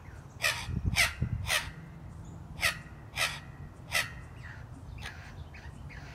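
Wattlebirds giving a string of short, harsh calls, about six in the first four seconds, then softer ones near the end.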